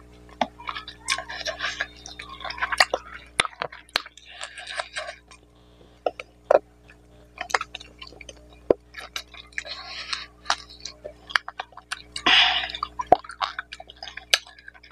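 Close-miked eating sounds of a man chewing mutton curry and rice: wet mouth smacks and sharp clicks scattered irregularly, with short bursts of chewing noise.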